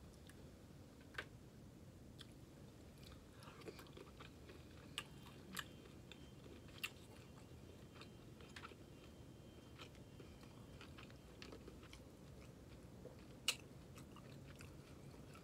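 Quiet close-up chewing of a soft stuffed bell pepper dipped in sauce, with scattered short wet mouth clicks and smacks; the sharpest click comes near the end.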